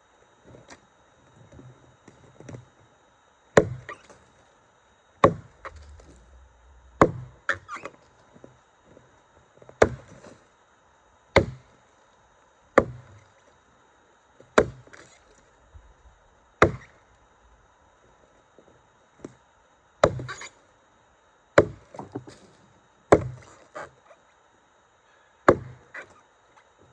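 A Tuatahi camp axe chopping into a redgum log, each stroke a sharp woody chop, about one every one and a half to two seconds, some followed by a lighter knock as the axe is worked free.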